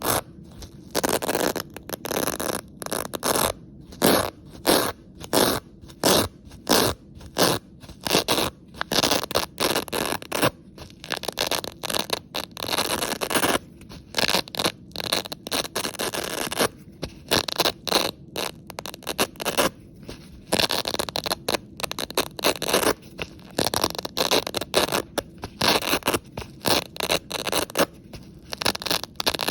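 Velcro hook-and-loop fastener being ripped apart again and again, each pull a crackling rasp lasting about half a second to a couple of seconds, with brief pauses between pulls.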